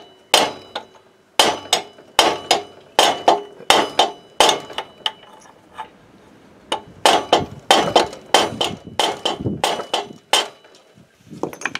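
Hammer tapping on a driver held over the contact-breaker cam of a Motobécane AV7 moped engine, driving the cam onto the crankshaft: about two dozen sharp knocks, often in quick pairs, each with a brief metallic ring, with a pause of about a second and a half midway.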